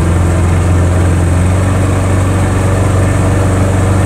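Small fishing boat's outboard motor running steadily at low speed, an even low hum.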